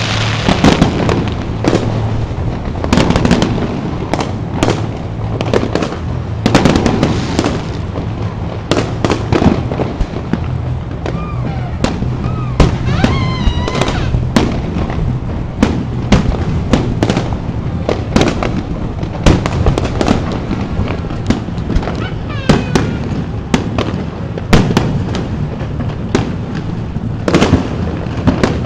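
Aerial fireworks shells bursting in a continuous barrage, with loud booms and sharp cracks following one another, often several a second.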